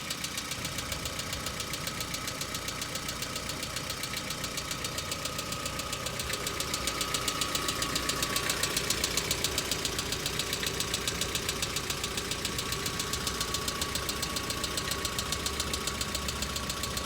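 Hyundai Accent engine idling cold with a fast, steady clatter of tapping hydraulic valve lifters, diesel-like, a sign of lifters not yet pumped up with oil on a cold start. A steady thin whine runs over it.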